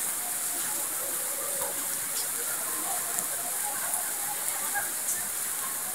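Steady rain falling and splashing on a wet concrete court, with faint voices calling now and then.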